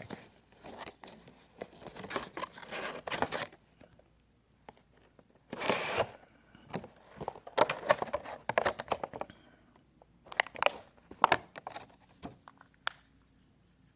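Product packaging being handled: plastic crinkling and tearing with light clicks and scrapes, coming in several bursts with short pauses between.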